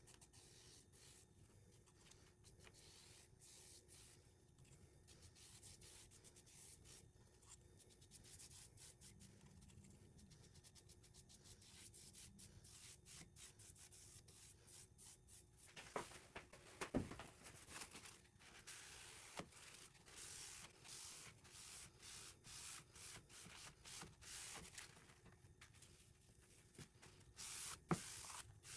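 Faint, soft rubbing strokes of a foam brush spreading liquid finish over a burnt cedar board, then of a paper towel wiping it. The strokes get more regular and a little louder in the second half, with a few light knocks about halfway through and near the end.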